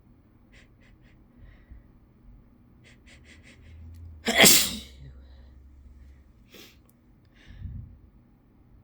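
A person sneezing once, hard, about four seconds in. A quick run of short sharp breaths comes just before it, and a couple of fainter breaths follow.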